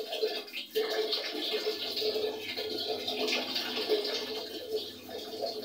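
Thin stream of water running from a wall tap and splashing into a basin below.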